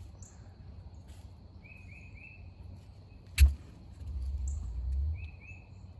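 Backyard ambience: a bird calls in short three-note phrases, twice, over a steady high insect-like whine. There is one sharp, loud knock about three and a half seconds in, and a low rumble for about a second after it.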